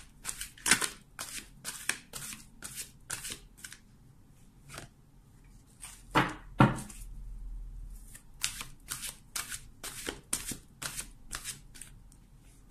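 A deck of oracle cards being shuffled by hand in quick, irregular card-on-card clicks and flicks. About six seconds in there are two louder slaps, as a card is laid down on the cloth-covered table.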